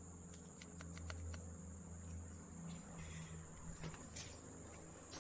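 Steady high-pitched insect drone, with a low hum underneath and a few light clicks.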